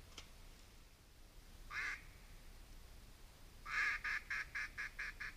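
Duck quacking: a single quack, then a loud quack followed by a quick run of shorter quacks, about five a second, growing fainter.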